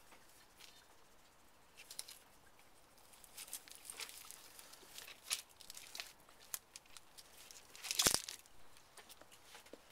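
Opossum scrabbling and stepping over loose gravel and stones: faint, scattered rustles and crunches. One sharper, louder knock about eight seconds in.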